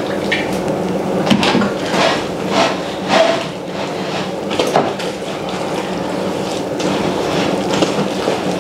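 Electric kitchen mixer's motor humming steadily as it kneads a batch of yeast dough, with irregular knocks of the dough against the bowl.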